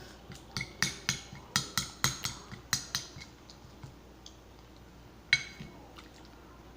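Homemade slime being handled, giving a quick run of sharp clicks and pops in the first three seconds, then one more pop a little past five seconds.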